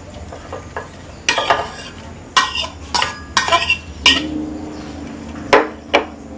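Kitchen utensils and dishes clattering: a series of about seven short knocks and clinks, irregularly spaced.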